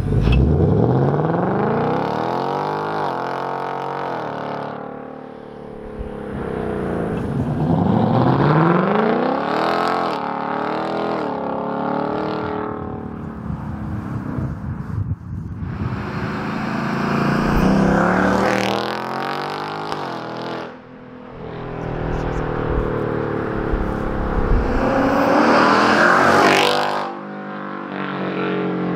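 2024 Ford Mustang Dark Horse's 5.0 L Coyote V8, breathing through a Corsa double H-pipe in place of the factory resonator, pulling hard several times: the exhaust note climbs steeply in pitch, then falls back and climbs again.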